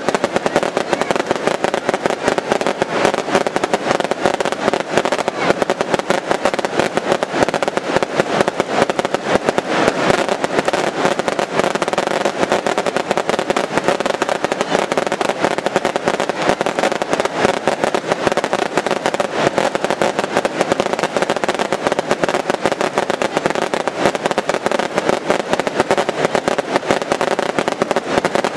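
Daylight fireworks going off as a continuous barrage: aerial shells and crackers burst in a dense, unbroken rattle of bangs and crackle, many reports a second, with no pause.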